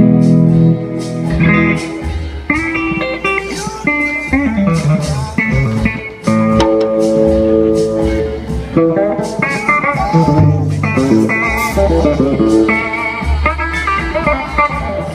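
Gibson Les Paul electric guitar played through an amplifier, warming up with bluesy lead lines: held notes, string bends and vibrato, and quick runs.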